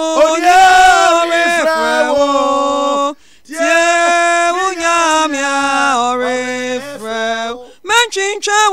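One voice singing slowly with no instruments, holding long notes in phrases, with short breaths about three and eight seconds in.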